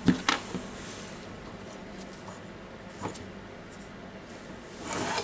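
A few light clicks and knocks of small disassembled power-tool parts being handled, with a brief scraping rustle near the end.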